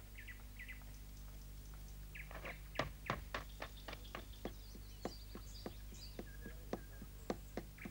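Cartoon sound effect of tiny light footsteps: an irregular patter of soft clicks, a few a second, starting about two seconds in, with a few faint chirps, over a low steady hum.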